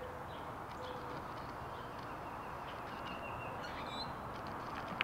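Steady outdoor background hiss with a few faint, short bird chirps in the second half, and one sharp small click near the end.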